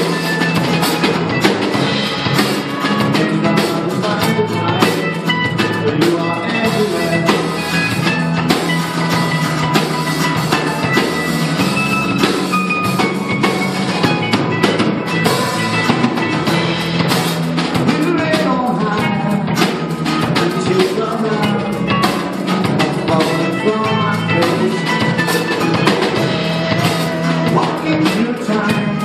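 Live band playing a rock song: acoustic guitars strummed over a drum kit, with a man singing lead.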